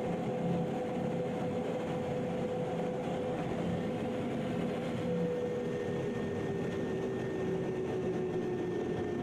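Light attack aircraft's engine and airflow heard from inside the cockpit as it rolls down the runway: a steady hum with a held tone, and a second tone that slowly drops in pitch over the last few seconds.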